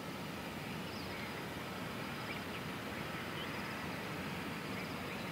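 Steady outdoor background noise with faint, scattered bird chirps and a faint repeating high trill.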